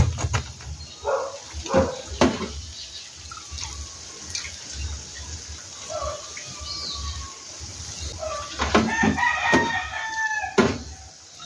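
A rooster crowing: one long held crow about nine seconds in that drops off at the end, with a few sharp knocks in the first couple of seconds.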